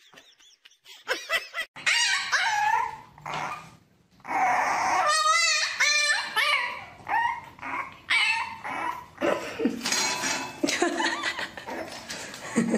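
A puppy whining and yipping in a string of high-pitched cries, with a fast warbling whine about five seconds in.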